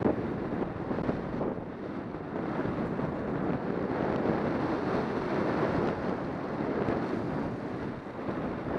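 Skis sliding and carving down a groomed trail of spring snow, a continuous scraping hiss, mixed with wind rushing over the microphone.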